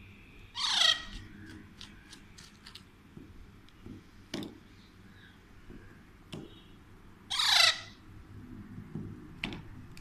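Alexandrine parakeet giving two loud, harsh squawks, about a second in and again near the end, with a few faint clicks between.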